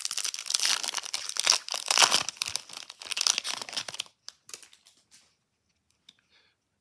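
Foil trading-card pack wrapper being torn open and crinkled, a dense crackle that stops about four seconds in, followed by a few faint clicks of handling.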